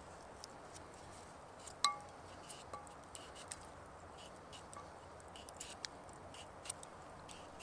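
Potato slices dropped into hot oil in a steel frying pan over a campfire. The pan gives a short ringing clink about two seconds in and a fainter one a second later, followed by scattered small crackles and pops.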